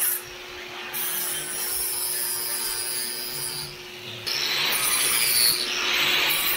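Handheld angle grinder grinding the steel teeth of a worn drag, cleaning off dirt and rust to bare metal before welding. A steady motor whine runs under a harsh grinding rasp, which gets louder about four seconds in.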